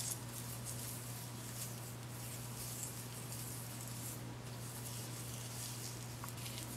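Faint, irregular hissy rustles of hands working conditioner through damp curly hair, over a steady low hum.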